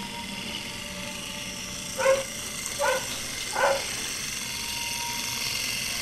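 Three short, pitched yelps, a little under a second apart, louder than the steady background.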